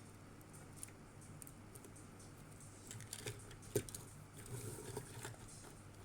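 Small plastic clicks and taps from handling a 3D-printed robot's parts, scattered and faint, the sharpest a little before the four-second mark.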